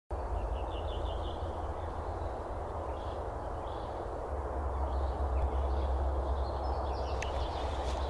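Forest ambience: small birds chirping now and then, with a quick trill near the start, over a steady rushing background noise with a low rumble.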